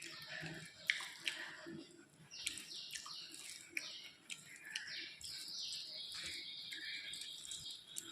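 A bird calling: a run of quick falling whistled notes from about two seconds in, then one long held high note near the end. Under it are the sharp clicks and smacks of someone chewing food.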